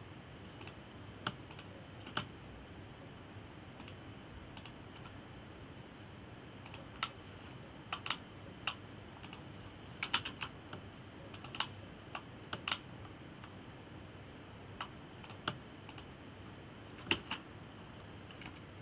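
Computer keyboard keys and mouse buttons clicking, irregular and sparse, some in quick clusters of two or three, over faint background hiss.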